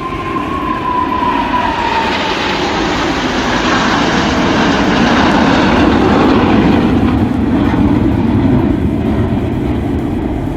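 Aircraft flying past. A whine falls in pitch over the first couple of seconds, then a loud roar swells to its peak about midway and slowly eases off.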